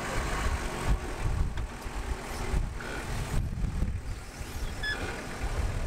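Off-road 4x4 engine running with a low rumble that rises and falls unevenly.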